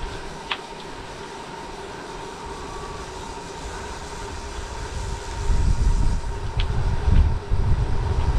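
Bicycle rolling along a road with a steady hum. About five seconds in, loud, uneven wind rumble on the microphone sets in, with a few short clicks.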